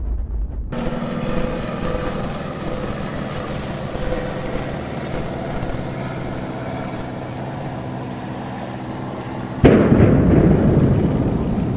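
Low rumble of a collapsing building's dust cloud cuts off within the first second, followed by a steady hum with many overtones. About ten seconds in comes a sudden loud blast of demolition charges felling power-station cooling towers, which stays loud as the towers come down.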